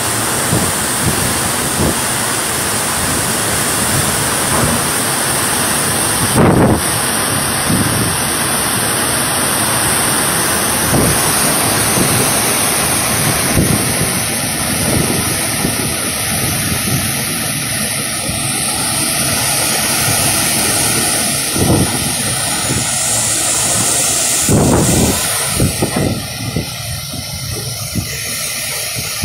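Super typhoon winds and heavy rain: a steady, loud rushing roar, with two brief louder surges, one about six seconds in and one near the end.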